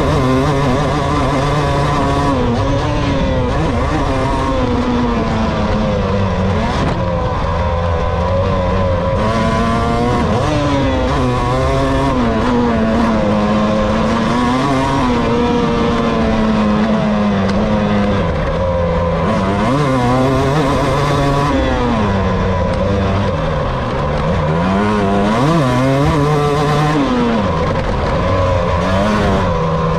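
Motocross dirt bike engine heard on board, revving up and down continuously as it accelerates out of turns, shifts and backs off, lap after lap of rising and falling pitch.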